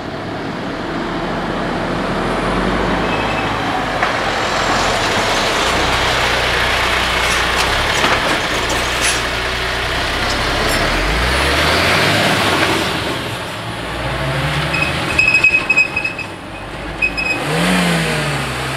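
A heavy diesel lorry drives slowly past close by over the level crossing, its engine pulling away with a rising pitch about eleven seconds in, followed by a car; the sound is loudest while the lorry is alongside.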